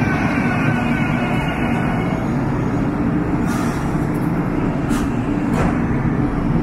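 Kinki Sharyo SLRV light rail train pulling into a station and slowing to a stop: a steady low rumble with a whine that falls in pitch over the first couple of seconds, then a short hiss about halfway through and two sharp clicks shortly after.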